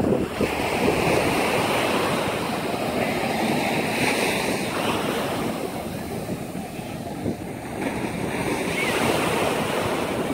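Ocean surf washing steadily onto a sandy beach, with wind buffeting the phone's microphone.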